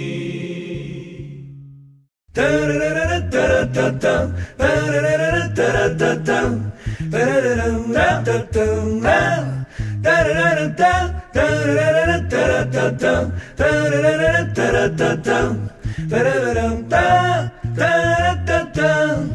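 Male a cappella choir: a held chord fades out over the first two seconds, then after a short silence a new lively a cappella song starts, voices only, with a low pulsing bass part under the melody.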